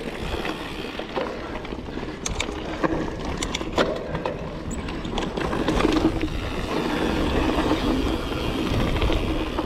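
Mountain bike riding over a dirt singletrack: tyres rolling and rumbling on the ground while the bike rattles, with a few sharp clicks and knocks between about two and four seconds in.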